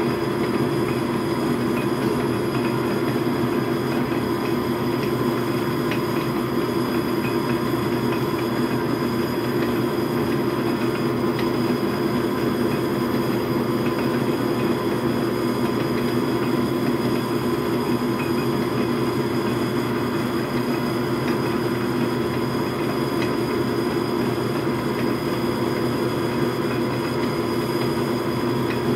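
Logan metal lathe running steadily under power, with several steady tones, while a center drill in the tailstock is fed into the spinning workpiece.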